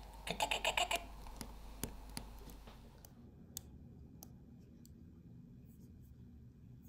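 Small sharp clicks and taps of a watch movement and its brass movement holder being handled and turned in gloved fingers. A quick run of clicks in the first second is followed by a few scattered single clicks that grow fainter.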